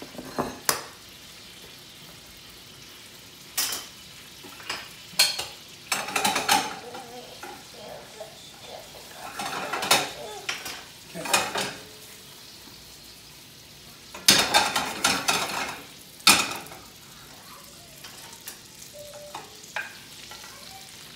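Gnocchi sizzling in a hot stainless sauté pan over high heat while being stirred and pushed around with a wooden spoon: a low steady sizzle broken by irregular bursts of louder sizzling and scraping, the longest about two-thirds of the way through.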